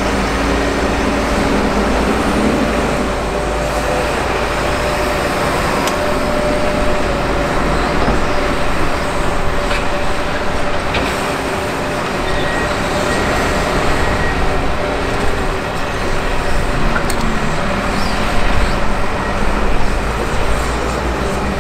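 Hitachi Zaxis 225USR LC tracked excavator working: its diesel engine runs steadily under load with the hydraulics as it swings, digs and dumps soil, with a few faint knocks.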